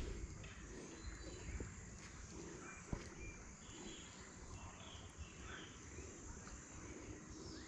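Quiet riverside ambience: a steady high insect drone with scattered short bird chirps over a low rumble. A single sharp click sounds about three seconds in.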